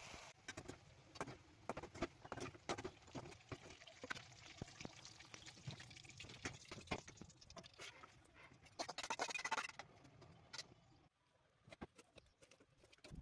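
Kitchen utensils clicking and scraping irregularly while cooking, with a louder hissing burst about nine seconds in.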